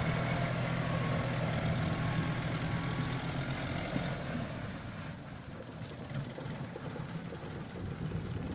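Tractor diesel engine running steadily as it powers a PTO-driven sugarcane cutter through the cane; the sound becomes quieter and duller about five seconds in.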